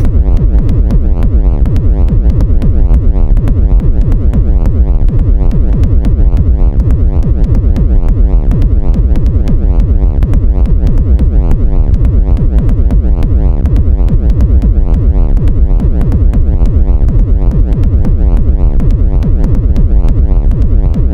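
Loud electronic industrial techno: a dense, heavy synthesizer bass with a fast repeating pulse, and steady thin ticks of percussion on top.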